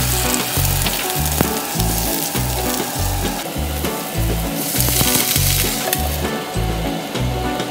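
Sponge gourd slices and garlic sizzling in hot oil in a frying pan, over background music with a pulsing bass line.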